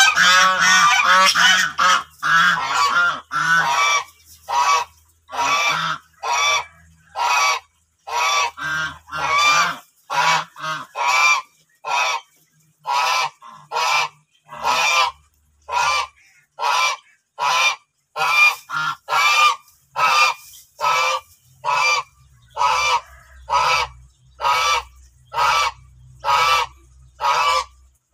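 White domestic geese honking loudly: a dense run of overlapping honks for the first few seconds, then single honks repeated steadily, a little more than one a second.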